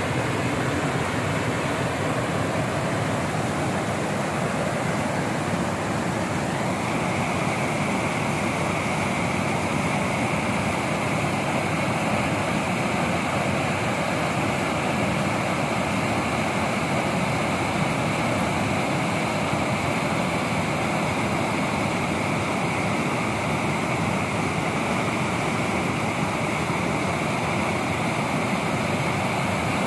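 Rushing river water tumbling over rock rapids, a steady, even white-water rush. A higher hiss joins about seven seconds in and stays.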